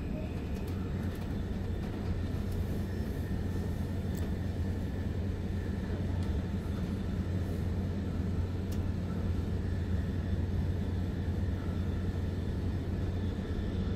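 Steady low rumble and hum inside a Re 450 double-deck commuter train running between stations.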